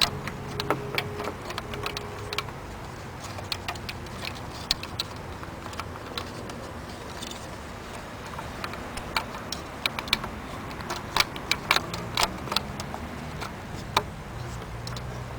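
Irregular light clicks and taps of bulbs and plastic sockets being handled and fitted into a projector headlight housing, with a denser run of sharper clicks about ten to thirteen seconds in.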